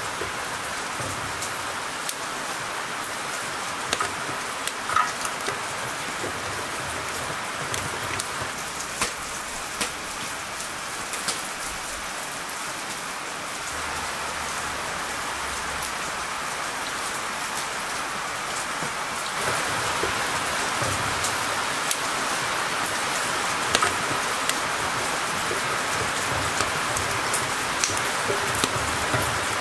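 Steady rain falling, a continuous hiss scattered with sharp ticks of drops striking nearby surfaces, growing a little louder about two-thirds of the way in.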